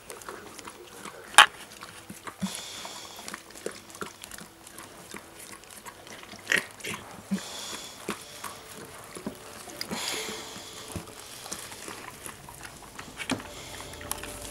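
Mother dog licking and nuzzling her newborn puppy to clean it just after birth: soft wet licking and snuffling with scattered small clicks, and one sharp knock about a second and a half in.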